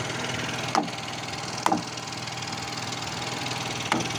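A small engine, likely the platform's generator, running steadily, with three sharp knocks on the wooden deck: about a second in, just under two seconds in, and near the end.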